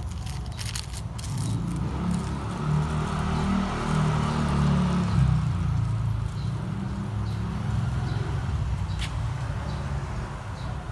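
A motor vehicle's engine running close by, a low rumble that swells over the first few seconds, peaks about five seconds in, then settles to a steady run. Brief crinkling and clicks near the start.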